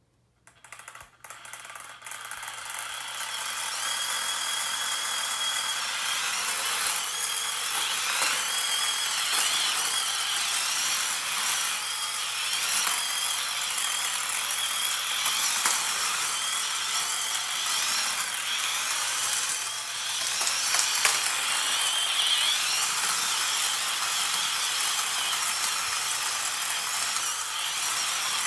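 Small toy combat robot (Hexbug Vex Bite Force) driving and turning: its little electric drive motors and plastic gearboxes whir and rattle with a high whine that comes and goes. A few clicks come first, and the steady running starts about two seconds in.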